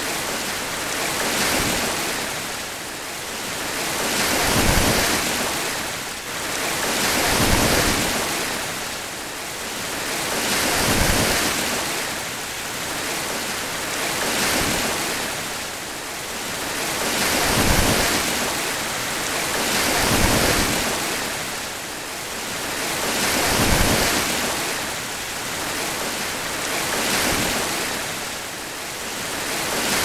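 Sea surf breaking and washing over a rocky shore, a steady roar of foam that swells and falls about every three seconds as each wave comes in.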